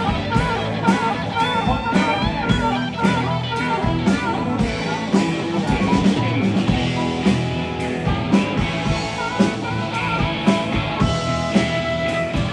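Live blues band music: an amplified harmonica and a Telecaster electric guitar over bass and drums, with a steady beat. Wavering, vibrato-like notes sit on top during the first few seconds.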